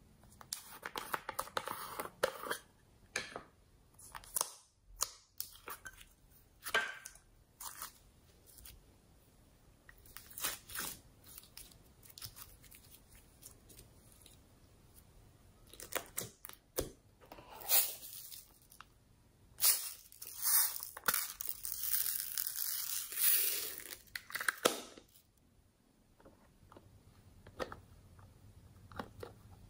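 Plastic slime containers handled and opened: a run of short crinkles, clicks and tearing sounds, with a longer, louder stretch of crackling and tearing near the end.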